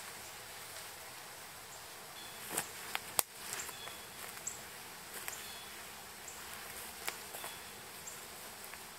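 Quiet woodland ambience with faint short high chirps scattered through it. A few sharp cracks and rustles, the loudest about two and a half and three seconds in, come from someone moving over dry sticks and leaf litter and handling the shelter.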